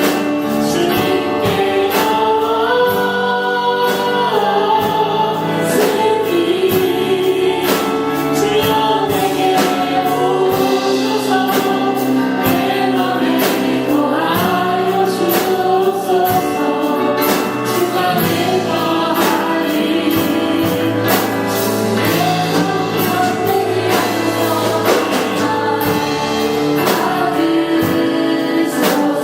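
A choir singing a gospel worship song with band accompaniment and a steady beat.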